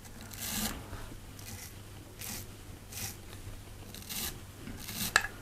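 A small wire brush stroked back through the fibres of a fly tied in the vise, about six short rasping brush strokes, roughly one a second, sweeping the dressing back.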